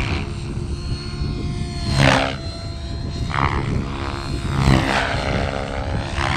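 Remote-control helicopter in flight: a steady whine from the motor and rotor, with swells of rotor noise rising and falling about every second and a half.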